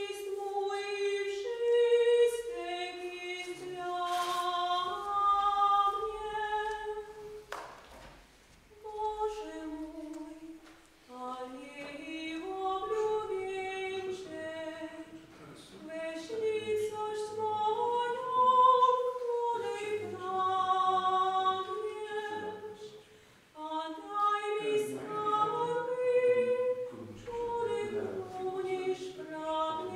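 Voices singing unaccompanied: a slow melody of long held notes, with brief pauses between phrases.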